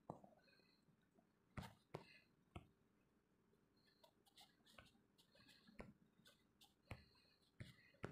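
Near silence: faint room tone with a dozen or so soft, scattered clicks.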